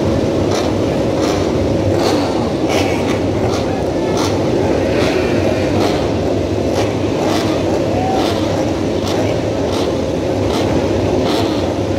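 Massed MotoGP race-bike engines running and revving on the starting grid, a dense steady engine noise with short rises and falls in pitch as riders blip their throttles before the launch.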